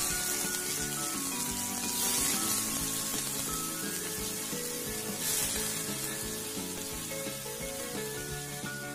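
Water-soaked raw plantain pieces sizzling in hot oil in a steel kadai, the sizzle slowly dying down, over soft background music.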